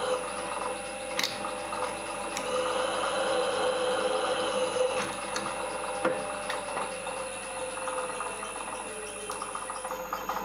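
A small electric machine motor running steadily, with a few light clicks and a tone that slides lower in the second half as it slows.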